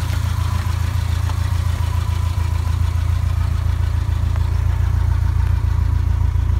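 Subaru Impreza 2.5RS's 2.5-litre flat-four engine idling, a steady low running sound with no change in pace.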